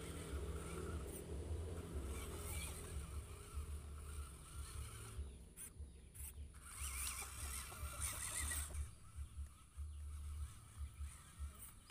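WPL C24 RC truck's small electric motor and gearbox running as it crawls over wet dirt hauling a load of cassava logs, with geese honking in the background.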